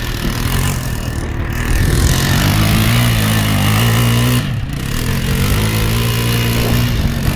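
Sport quad (ATV) engine revving hard as the quad slides through turns in loose sand. The pitch climbs, drops sharply about four and a half seconds in, then holds steady again.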